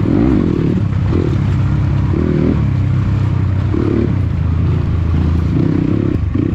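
Dirt bike engine running at low speed under the rider, with the pitch lifting in short throttle blips several times.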